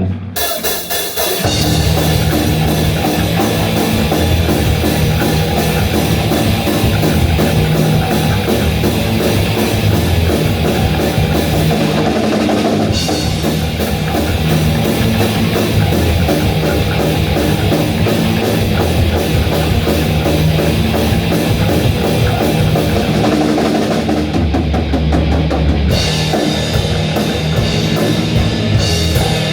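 A live rock band playing a fast, heavy section on drum kit, bass and guitar, coming in just after the start and carrying on without a stop. Near the end the cymbals and guitar top drop out for a couple of seconds, leaving the low drums and bass, before the full band returns.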